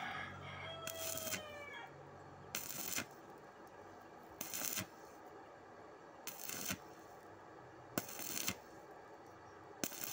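Stick welding arc crackling in six short bursts of about half a second, roughly every two seconds, as the electrode is struck and broken off again to lay the bead in stitches. A rooster crows once, about a second in.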